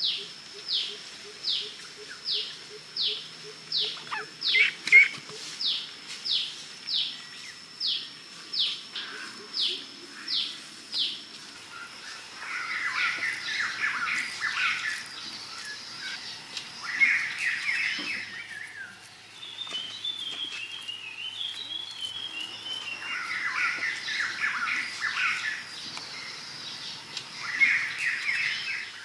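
Wild birds calling: a falling whistle repeated a little more than once a second for the first eleven seconds or so, then several bursts of chattering calls. A steady high-pitched hum runs underneath.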